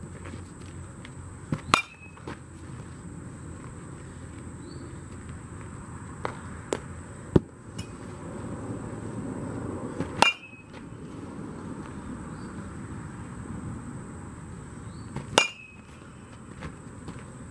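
Metal baseball bat hitting balls with a ringing ping, three times several seconds apart: about two seconds in, about ten seconds in, and near the end. A few lighter knocks come in between.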